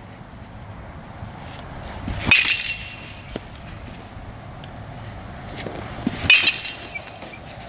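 A metal baseball bat hitting pitched balls twice, about four seconds apart, each hit a sharp crack with a ringing ping.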